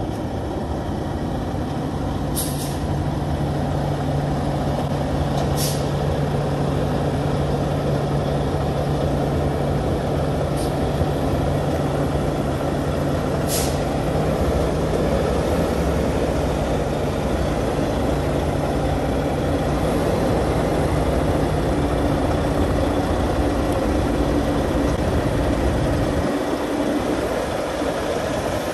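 Heavy tow truck's Cummins diesel running steadily, with several short air hisses from its air system early on; the engine note steps higher about two-thirds of the way in as the truck moves off.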